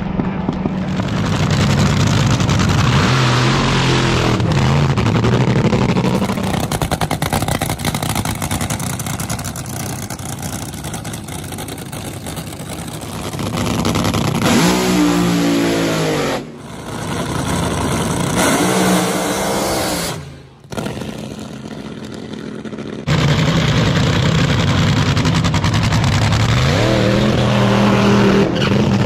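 Supercharged nitromethane drag race engines, loud throughout, revving up and down in several separate recordings cut abruptly together. The loudest stretch, near the end, is an engine held at high revs during a burnout.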